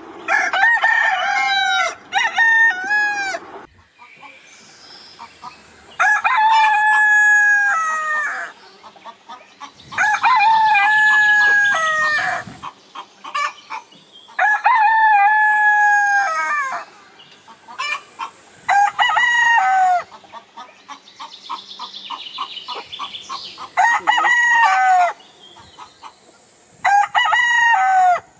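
Bantam Wyandotte and German Langshan roosters crowing in turn. There are about eight crows, the longer ones lasting around two and a half seconds, each dropping in pitch at the end, with softer clucking in the gaps between them.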